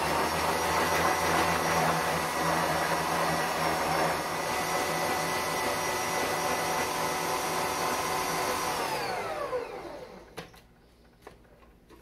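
Electric stand mixer running steadily at speed with a motor whine, beating eggs and vanilla into creamed butter and sugar. About nine seconds in it is switched off, and the whine falls in pitch and dies away.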